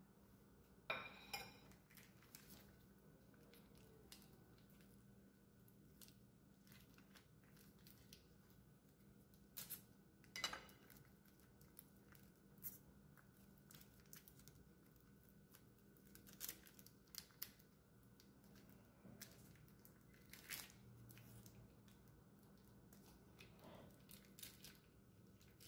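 Faint crinkling, tearing and small clicks as a cream cheese block's cardboard box and foil wrapper are opened by hand, with a louder knock about a second in as a ceramic serving plate is set down.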